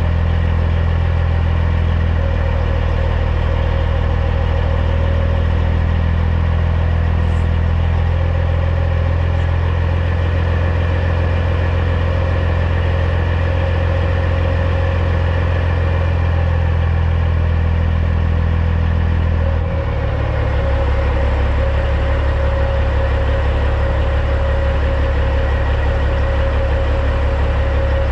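CAT C15 six-cylinder diesel of a Peterbilt 379 running steadily at low revs, its pitch dropping a little about twenty seconds in.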